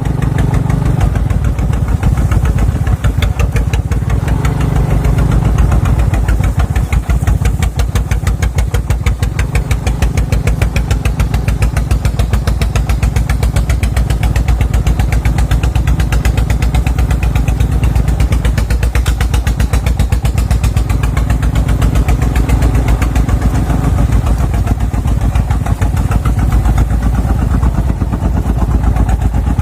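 Dong Feng single-cylinder diesel engine of a small farm truck running steadily, with a fast, even firing beat.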